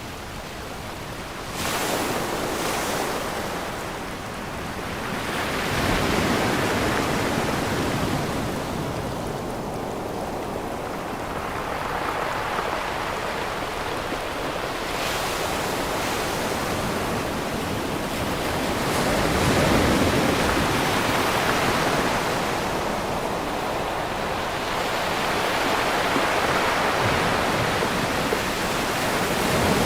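Ocean surf on a beach: waves breaking and washing in, swelling in about five surges several seconds apart over a steady rush of water.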